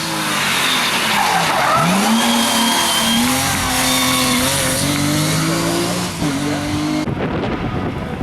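Rally car engine at high revs, dropping briefly and climbing again through gear changes as the car drives hard, with heavy tyre and road noise and some tyre squeal. About 7 s in, the sound cuts abruptly to a quieter, windier shot.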